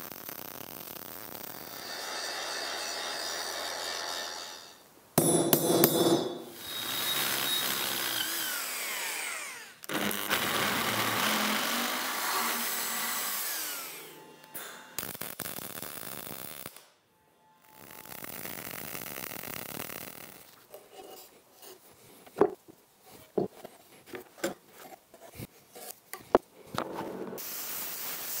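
MIG welding in a series of short takes: the arc crackles and sizzles in stretches a few seconds long as stitch welds are laid, then comes a run of sharp ticks and short bursts. Near the end a plasma cutter starts a steady hiss.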